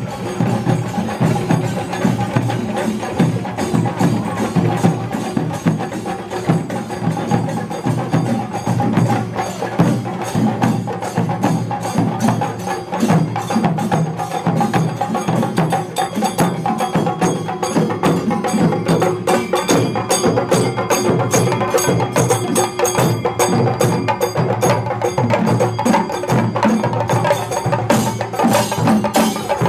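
Group of chenda drums beaten with sticks in a fast, dense, unbroken rhythm, with a steady ringing tone held over the drumming.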